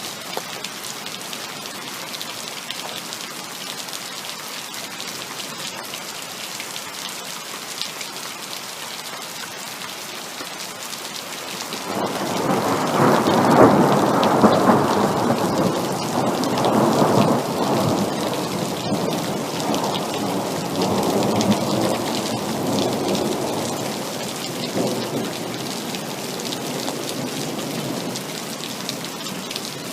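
Heavy rain falling steadily, with a long rolling rumble of thunder that swells up about twelve seconds in and slowly fades away over the next ten seconds.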